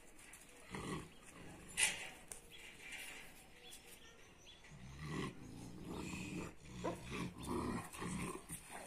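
Kangal shepherd dogs growling low in several short spells over the second half, with a sharp click about two seconds in.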